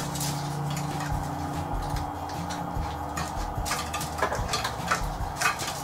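Scattered light taps and crinkles as a small packet of fresh yeast is opened and handled on a wooden cutting board, over a steady low hum.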